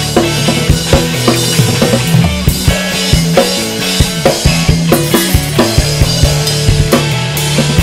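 Rock music: a drum kit playing kick and snare hits several times a second over a sustained bass line that moves between notes.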